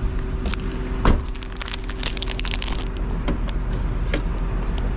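Porsche Cayenne idling with a steady low hum. There is a single thump about a second in and a quick run of clicks and rattles around two seconds in, from handling parts of the car.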